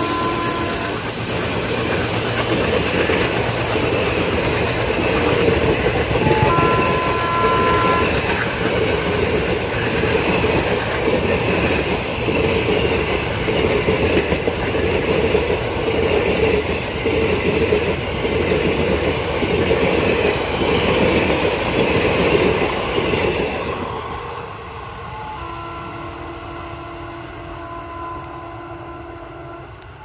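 Coaches of a passing Indian Railways express train, pulled by a diesel locomotive, rattling by at speed with an even clickety-clack over the rail joints. The locomotive's horn sounds briefly at the start and again for about a second and a half at about 6.5 s. About 24 s in the sound drops, and a fainter, steady horn sounds near the end.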